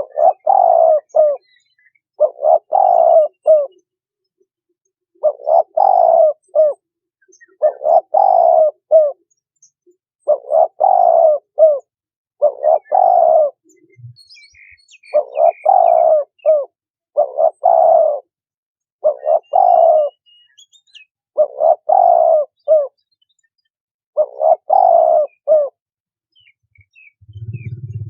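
Spotted dove cooing, a repeated phrase about every two seconds, eleven times. Faint higher chirps sound around the middle.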